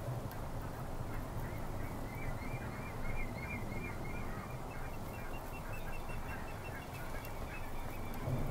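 Calls of wild waterbirds over a steady low rumble. A quick run of high chattering notes comes from about two to seven seconds in.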